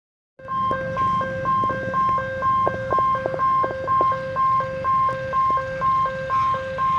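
Electronic two-tone alarm: a high beep alternating with a lower one, about two cycles a second, over a low rumble.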